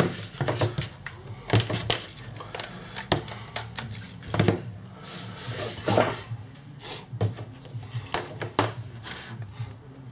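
Irregular clicks and light knocks of small plastic and metal parts being handled while a JBL Flip 4 Bluetooth speaker is worked on to get at its USB charging port.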